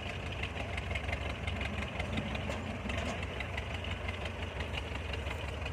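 Kubota DC70 combine harvester's diesel engine running steadily, a low even hum with a higher mechanical drone over it and light faint ticking.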